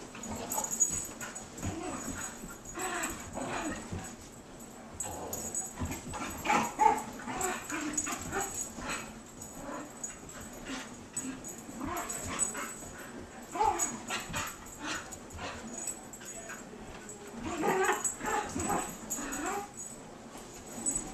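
Young dogs at rough play, two Komondor puppies and an Australian Shepherd, giving short whines and yips in irregular bursts. The calls are busiest near the end.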